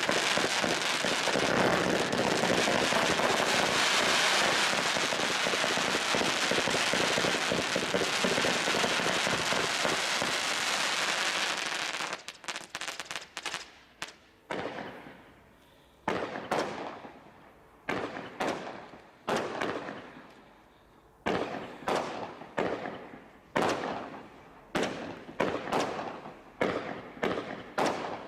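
Consumer firework barrage firing. First comes a dense, continuous crackle for about twelve seconds. Then it breaks into separate sharp bangs, one or two a second, each trailing off before the next.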